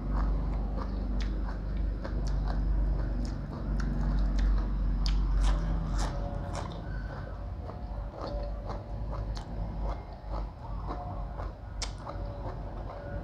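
A person chewing and biting into food close to the microphone, with many sharp crunches: mouthfuls of rice noodle salad eaten with fresh lettuce and herbs.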